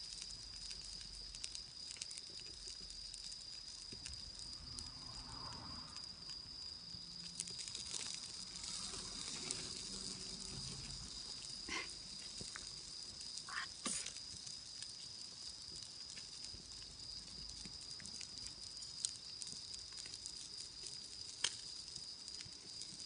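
Steady high-pitched chirring of autumn insects, with occasional sharp snaps and crackles from a wood campfire.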